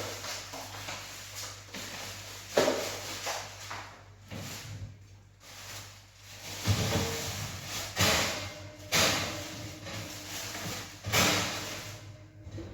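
Kitchen handling noises: about five sharp knocks and clatters with rustling between them, as a covered bowl of dough is put into an oven and the oven door is worked.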